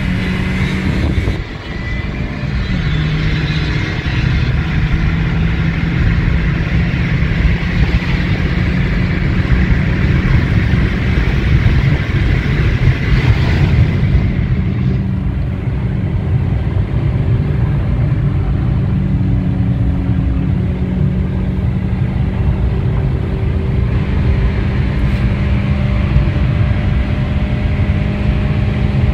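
Car engine and tyre/road noise heard from inside the cabin while driving on a highway. The engine note climbs at the start, drops with a short dip about two seconds in like a gear change, then holds a steady cruising drone that creeps slowly higher.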